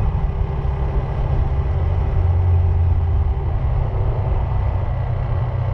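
A car driving along a road, a steady low rumble of engine and road noise that swells slightly about two seconds in.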